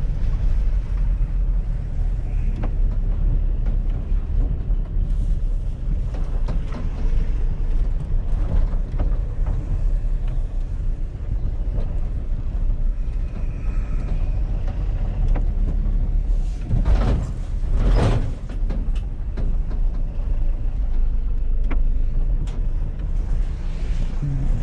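Small van driving, with steady engine and road rumble and occasional rattles and knocks. A louder rush of noise comes about three quarters of the way through.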